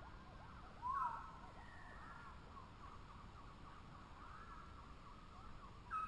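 Budgerigar chattering: a run of short, quick warbling chirps, with a louder chirp about a second in and another at the end.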